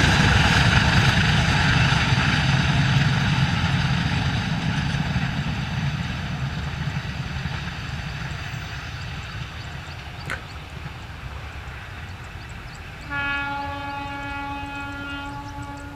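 A train passing and running away into the distance, its rumble and wheel noise fading steadily. Near the end a train horn sounds once, a steady chord of several tones held for about two and a half seconds.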